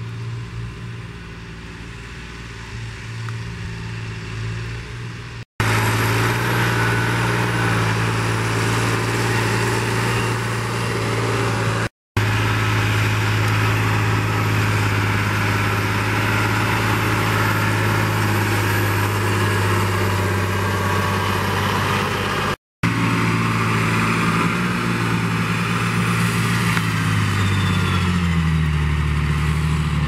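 John Deere 8200T/8210T tracked tractors' six-cylinder diesel engines running steadily while pulling land levellers, in several spliced takes separated by brief silent gaps. Near the end the engine note falls.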